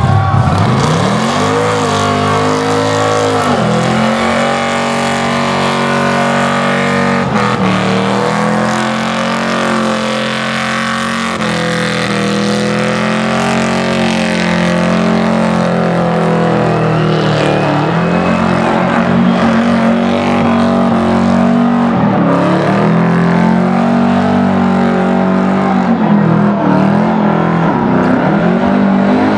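Plumbing van's engine revving hard through a burnout, its rear tyres spinning and smoking against the track. The revs sag and climb back several times.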